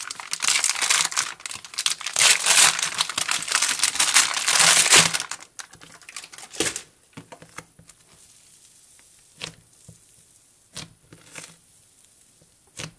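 Foil-lined plastic pouch of Model Magic clay crinkling loudly as the clay is pulled out of it, for about five seconds. Then it goes much quieter, with a few soft taps as hands press the clay on a tabletop.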